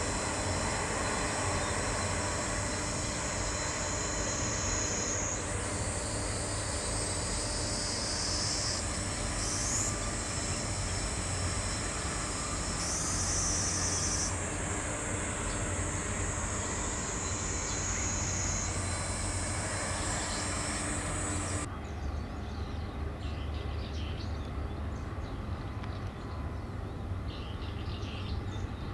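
Distant shipyard noise: a steady low hum with a high-pitched whine that jumps up and down in pitch several times. About three-quarters of the way through, the whine and the steady tone cut off abruptly, leaving a quieter hum.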